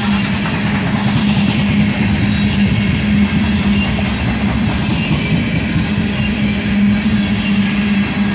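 Loaded coal hopper cars rolling past, their steel wheels running on the rails in a steady, loud rumble with a constant low hum underneath.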